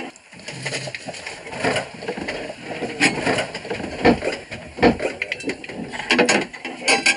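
Irregular knocks and clinks of a cooking pot, its lid and utensils being handled in a small galley.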